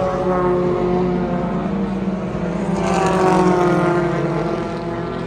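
Porsche 911 GT3 Cup race cars' flat-six engines passing on the circuit. The note swells to its loudest about three seconds in, then drops in pitch as the cars go by.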